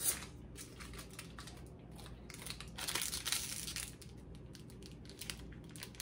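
Crinkling and tearing of a candy wrapper being picked and peeled off a chili-coated Rockaleta lollipop, the wrapper sticking to the candy. Irregular crackles, louder about three seconds in.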